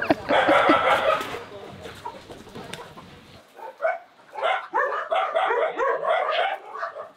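Chickens squawking and cackling in alarm as dogs go after them. The calls are loudest in the first second or so, fade, and then come back as a run of short repeated squawks in the second half.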